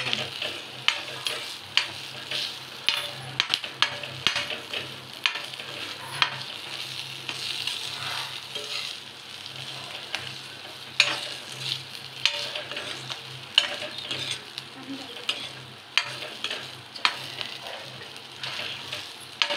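Green chillies with masala frying in oil in a metal kadhai, sizzling steadily, while a steel spoon stirs them, scraping and tapping against the pan about once a second.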